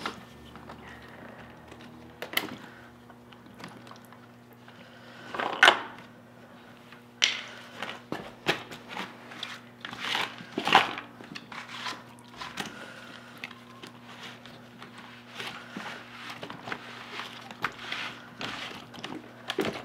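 Hard plastic parts of a hand-pump fluid extractor being handled and taken apart: irregular clicks, creaks and knocks as the pump lid is worked loose from the canister, with a louder knock about six seconds in and a run of knocks a few seconds later.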